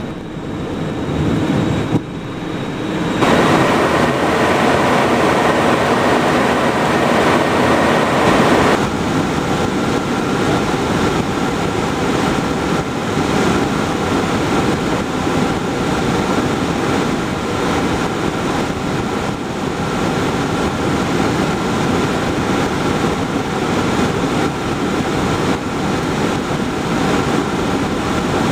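Cockpit noise of a Cessna Citation Encore's twin turbofan jet taking off. A loud rumble from the takeoff roll builds about three seconds in and drops sharply about nine seconds in as the wheels leave the runway. Steady engine and airflow noise with a faint whine follows through the climb.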